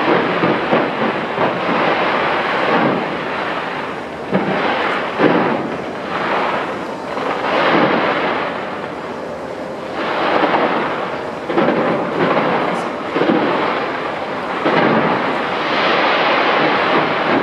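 Aerial fireworks bursting in dense, overlapping salvos: a continuous rumble of booms with sharper bangs rising out of it every second or two.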